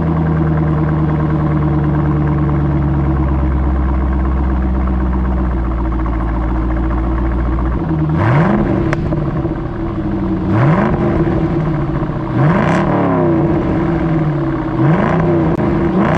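C5 Corvette's 5.7-litre V8 breathing through a Borla S-Type exhaust, with stock headers and H-pipe, running at a steady cold-start fast idle just after firing up. About halfway through it is revved four times, about two seconds apart, each rev climbing quickly and dropping back to idle.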